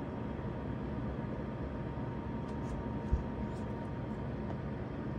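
Steady low background rumble with a faint steady hum, and a single short low thump about three seconds in.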